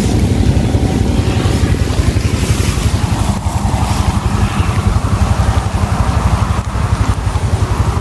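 Wind buffeting the microphone: a steady, loud low rumble that flutters rapidly.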